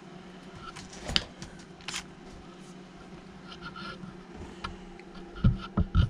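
Handling noise on a workbench: a few sharp clicks, then a cluster of low knocks near the end, the loudest sounds, over a steady low hum.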